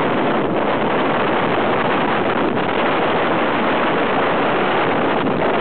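Steady wind rush on the microphone over the running engine of an ultralight aircraft in flight.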